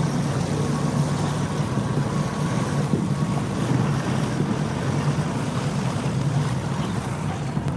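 Charter fishing boat running under way: a steady low engine drone with wind buffeting the microphone.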